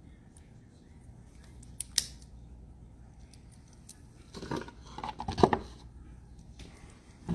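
Desk handling noises: two sharp clicks about two seconds in, then a couple of seconds of rustling and scraping, and a knock near the end.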